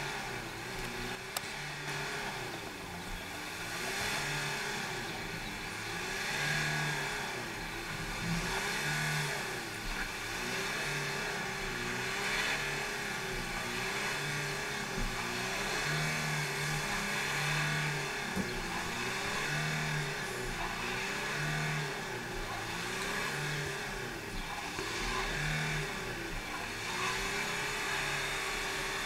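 Renault Kangoo van's engine revving up and down over and over, rising and falling about every two seconds, as the van spins its wheels stuck in wet mud.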